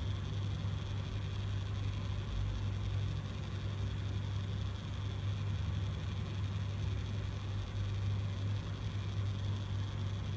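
Small electric motor of a rotating display turntable humming steadily, with a faint high whine over a low hum and even hiss.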